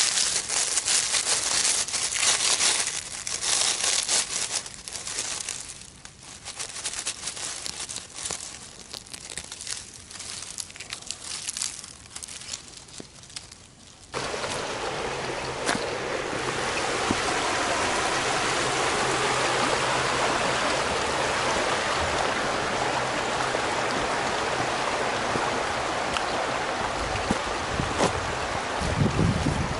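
Dry leaf litter crackling and rustling in irregular spurts as a hand digs at the base of a clump of wild onion grass. About halfway through, an abrupt cut to a stream running with a steady rush of water.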